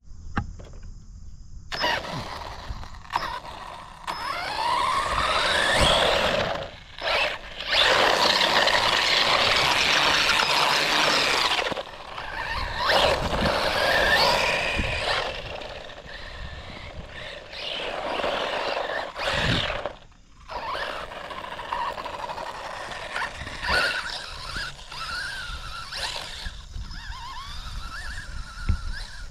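Brushless electric motor of an HBX 16889A Pro 1/16-scale 4x4 RC truck whining up and down in pitch in repeated throttle bursts, with the tyres churning over wet ground. There are a few short pauses between the bursts.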